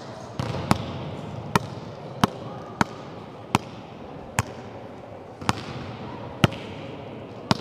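A hand slapping a volleyball again and again as it is kept up overhead with one hand: about ten sharp hits, roughly one every three-quarters of a second to a second.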